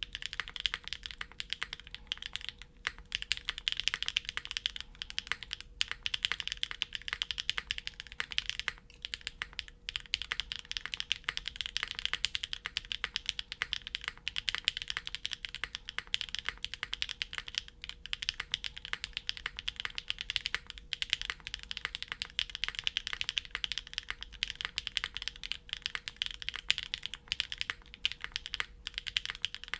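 Continuous fast typing on a custom mechanical keyboard: a Geonworks F1-8X V2 case with a polypropylene plate, Gateron Summertime v2 switches and GMK Red Dragon keycaps.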